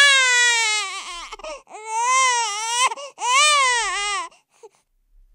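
A baby crying: three long cries with short breaths between them, stopping a little after four seconds in.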